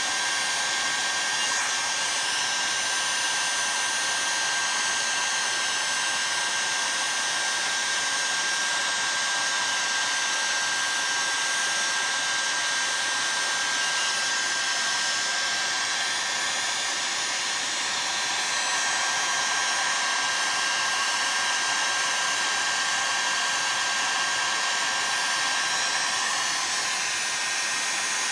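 Heat gun blowing steadily with a high whine, heating an aluminium chainsaw crankcase so the bearing bore expands for a tight bearing, with beeps from an infrared temperature gun taking readings.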